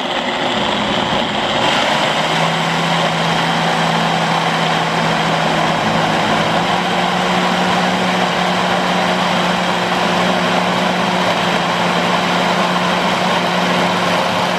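Ninja Kitchen System 1500-watt blender motor running at high speed with a steady whir, its pitch stepping up slightly about two seconds in.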